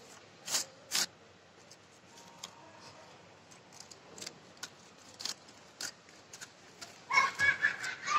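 Cut paper strips of a fringed paper Christmas tree rustling and crackling as they are handled and fluffed: two sharp crackles about half a second and a second in, then scattered small ticks. A louder sound with some pitch to it comes near the end.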